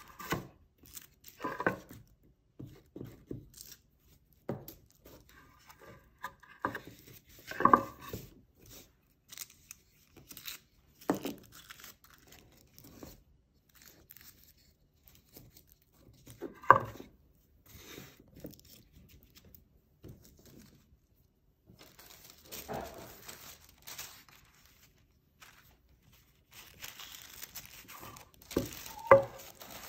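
Tissue paper rustling and crinkling as it is pressed, folded and smoothed over the edges of a wooden tray, with a few sharp knocks of the tray and glue stick against the tabletop.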